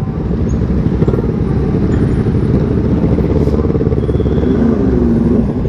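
Motorcycle engines running in a slow traffic jam, a steady low rumble of engine pulses.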